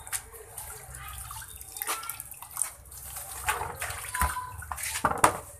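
A plastic bag of wet bait grain crinkling as it is knotted and lifted, with water splashing and dripping. Irregular rustling with many sharp clicks, busiest near the end.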